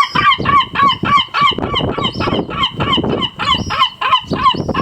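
A gull calling in a fast, even series of short honking cries, about four to five a second at a steady pitch.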